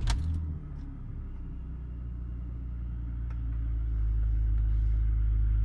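BMW E46 330i's 3.0-litre straight-six catching at the end of cranking and settling into idle, heard from inside the cabin. Its low, steady rumble grows louder over the first few seconds, then holds level.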